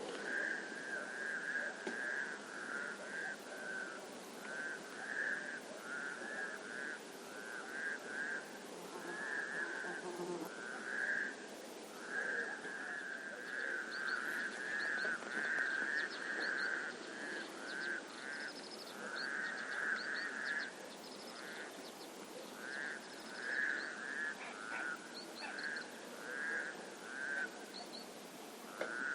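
A chorus of frogs croaking: short, rapidly pulsed calls repeated over and over, overlapping with one another. From about halfway, faint high-pitched chirps join in.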